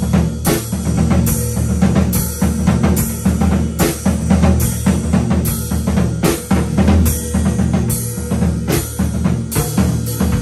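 Pearl acoustic drum kit played with sticks in a steady beat: kick and snare underneath, with a sharp cymbal-type stroke about every three-quarters of a second.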